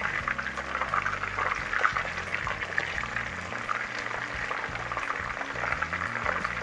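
Chicken pieces frying in hot oil in a deep pot, the oil sizzling steadily with a thick crackle of small pops.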